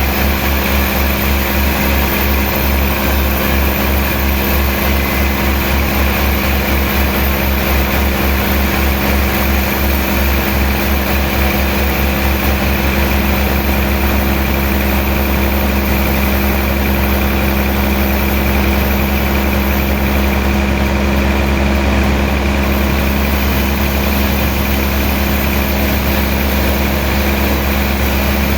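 Machinery running steadily with a strong low engine-like hum. A fast pulsing throb in the hum evens out about halfway through.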